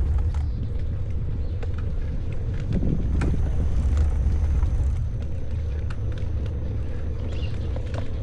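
Steady low rumble of riding noise while cycling, wind and road on the microphone, with scattered light ticks.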